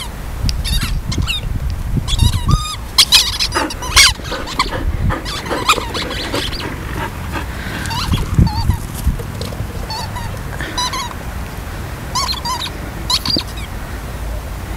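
Squeaky toy balls for dogs squeaking again and again as dogs chew and bite them: many short, wavering high squeals at irregular intervals, some in quick runs.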